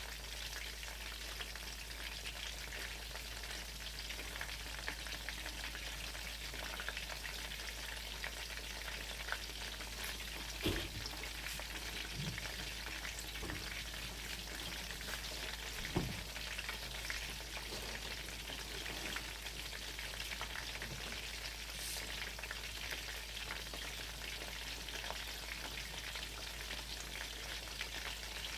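Breaded chicken cutlets frying in hot oil, a steady sizzle and crackle. Two brief knocks stand out, one about a third of the way in and one just past the middle.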